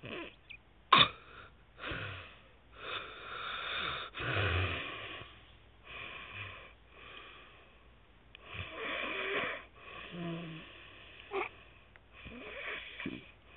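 A sleeping man snoring through his open mouth: a run of wheezy snores of uneven length and spacing, which the uploader likens to beans boiling. A sharp short snort or click about a second in is the loudest sound.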